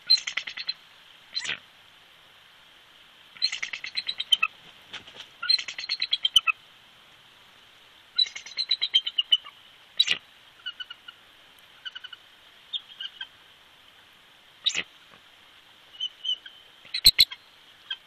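Bald eagle calling: series of rapid, high chittering notes, four of them in the first half, then scattered fainter notes. A few sharp clicks break in, the loudest near the end.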